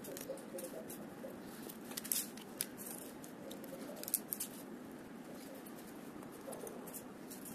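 Wooden craft sticks being handled and laid on a tabletop: scattered light clicks and taps at irregular intervals over steady faint room noise.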